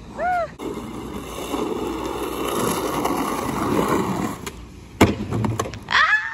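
Skateboard wheels rolling and rumbling over rough concrete and asphalt, with a sharp clack of the board about five seconds in. Short pitched calls sound at the start and again near the end.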